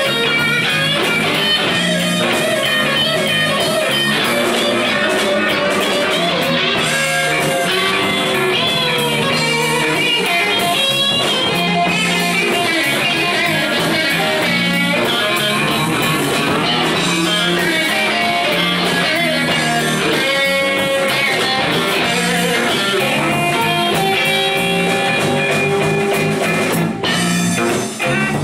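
Live electric blues band playing an instrumental passage without vocals: a Telecaster-style electric guitar plays a lead line with bent, wavering notes over electric bass and drum kit.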